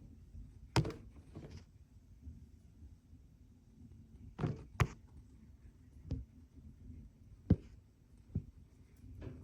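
A series of irregular thuds and knocks, about eight over several seconds, the loudest near the start, in the middle and about three-quarters through, with a low rumble between them.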